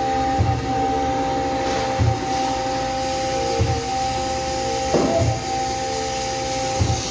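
Waterjet cake-cutting machine running steadily after repair, with a steady hum, a hiss, and a low thump about every second and a half. A single sharp click comes about five seconds in.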